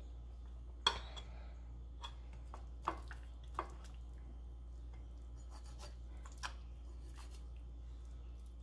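Knife cutting and scraping fat from a raw slab of pork ribs in a glass baking dish, with a few sharp taps and clicks, the loudest about a second in, others near three seconds and six and a half seconds. A low steady hum lies underneath.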